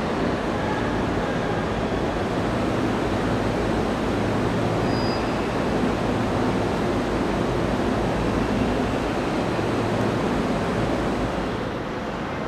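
Steady rushing noise of a Shinkansen station platform with a low hum under it, easing off a little near the end.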